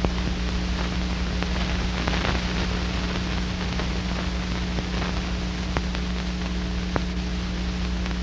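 Steady hiss and low hum with a few scattered clicks: the background noise of an old black-and-white film soundtrack transferred to VHS, with no narration yet.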